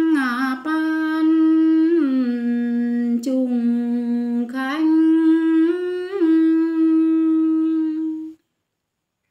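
A woman humming a slow, wordless melody in long held notes, sliding down and back up between two main pitches. The closing phrase stops abruptly about eight seconds in.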